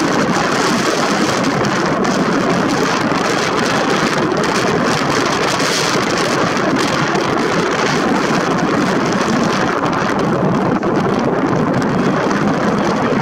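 Steady wind noise, a constant rushing hiss on the microphone.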